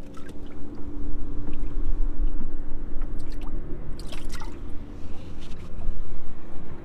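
A crappie splashing in a boat's livewell as it is dropped into the water, the loudest splashing about four seconds in. A steady low hum runs underneath.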